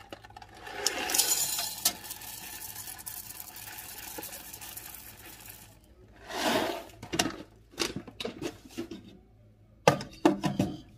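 Roasted coffee beans poured from a plastic bag into the stainless steel cup of an electric coffee grinder, a continuous pour for about five seconds. Then the plastic bag rustles, and near the end a few sharp clicks as the clear plastic lid is fitted onto the grinder.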